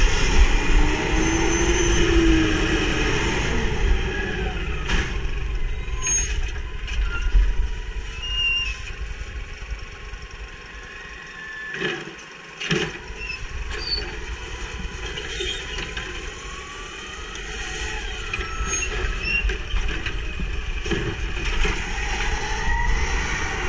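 Natural-gas automated side-loader garbage truck working a curb stop: the engine running and revving, the hydraulic arm's pump whining up and down in pitch as it grabs and tips a cart, with a few sharp clanks of the cart and arm. It pulls away near the end.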